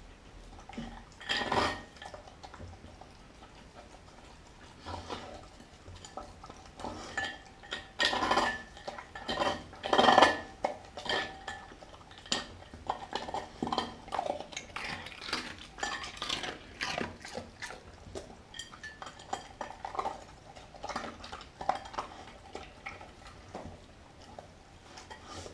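A German Shepherd–Chow Chow mix dog eating raw food from a glass bowl. His teeth and muzzle knock and clink against the glass in an irregular run of sharp clinks, a few of them louder.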